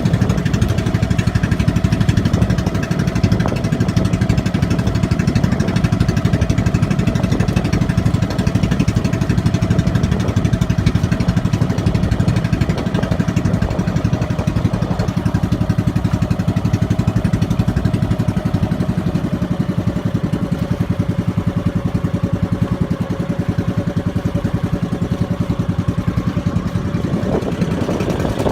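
Boat engine running steadily with a fast, even pulse, its pitch dipping slightly about halfway through.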